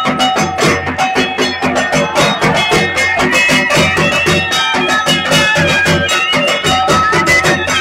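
Music with a fast, steady drum beat under a sustained melody with plucked strings.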